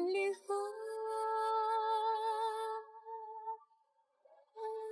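Background music: a woman's voice sings a long held note with vibrato, which fades out about three and a half seconds in. A short new note starts near the end.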